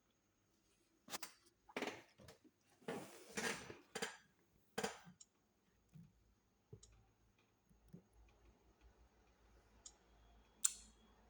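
Small tools and parts being handled during the repair of a power steering module: a quick run of clicks and scrapes, then a few scattered ticks and one sharp click near the end.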